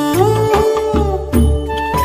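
Background music with a steady beat and a sliding, flute-like melody line.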